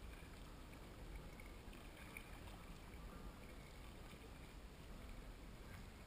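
Faint water sounds of a kayak gliding on a calm river, over a low steady rumble.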